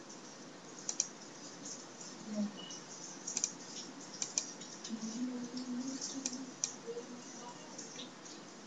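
Irregular computer mouse and keyboard clicks, about a dozen short sharp ticks, with a faint voice murmuring in the background.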